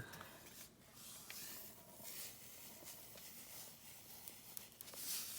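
Salt being poured into a container of ice water: a faint, grainy hiss that comes and goes, louder near the end.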